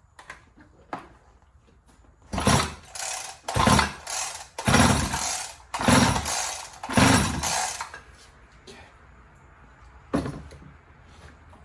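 Chainsaw recoil starter rope pulled about five times in quick succession, a rasping pull roughly every second, cranking the engine over without it firing for a compression test. A few light clicks of handling come before and after the pulls.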